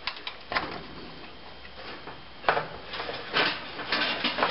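Small clicks and rustling of an electric range's burner wires and plug-in connectors being handled and unplugged, with a sharper click about two and a half seconds in and a cluster of clicks near the end.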